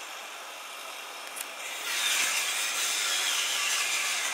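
Handheld angle grinder cutting through the steel of a wheel clamp, a harsh grinding whine that starts about two seconds in, its pitch sagging slightly as the disc bites, and stops suddenly at the end.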